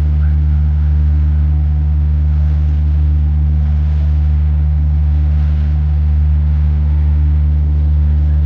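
Steady low engine drone of a boat, heard on board: a deep, unchanging hum with a few steady tones above it.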